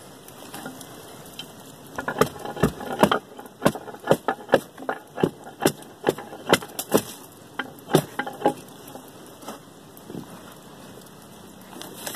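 Bark being pried and peeled off a felled log, splitting away from the wood in a quick, irregular run of sharp cracks and crackles from about two seconds in, dying away after about nine seconds.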